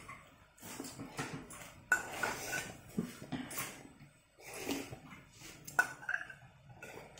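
A metal spoon clinking and scraping in a bowl of noodle soup while eating. Two sharp clinks with a short ring, about two seconds in and again near six seconds, are the loudest sounds.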